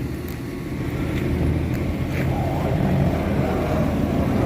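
A few faint light taps of a multitool pen's glass-breaker tip against a car window, over a steady low rumble.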